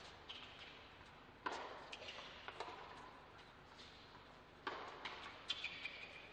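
Tennis rally: sharp hits of a tennis ball, racket strikes and bounces on a hard court, coming a second or two apart.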